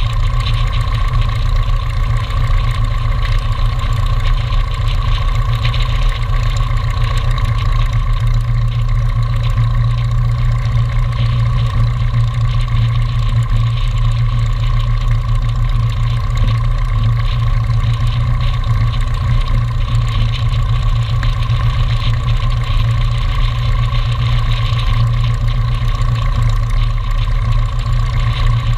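Light aircraft's piston engine and propeller idling steadily on the ground, a loud, even low drone.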